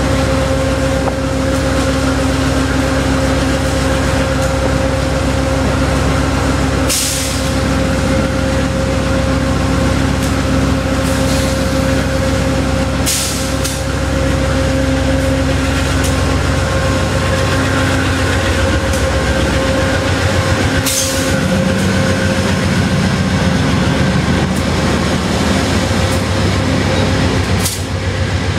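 GE P42 Genesis diesel locomotive's V16 engine running hard as the train pulls out, its engine note shifting about two-thirds of the way through. Four brief bursts of hiss cut in along the way.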